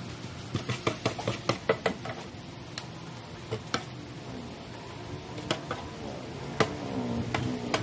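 Metal spatulas clanking and scraping against a large steel wok while pad thai noodles are stir-fried. A quick run of clinks comes in the first two seconds, then scattered single strikes. Near the end a passing vehicle's engine grows louder and rises in pitch.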